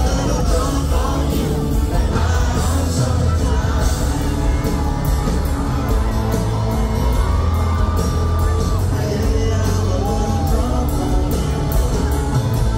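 Live country band playing at a loud concert, heard from within the crowd: a steady drum beat under full band, a few held sung notes, and whoops and yells from the audience.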